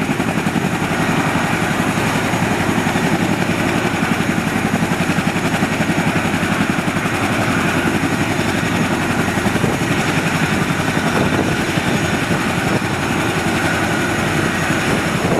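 Helicopter running: a loud, steady turbine-and-rotor noise with a fast pulsing beat.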